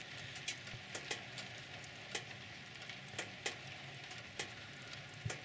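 Wood fire crackling with irregular sharp pops, a few a second, over a steady hiss, as wood gas burns in small jets from the holes of a tin can charring wood into biochar.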